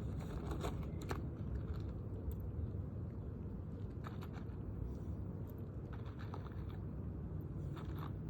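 Scattered crunches and scrapes of hands and tools working loose asphalt roof shingles, a few clustered near the start, around the middle and near the end, over a low steady rumble.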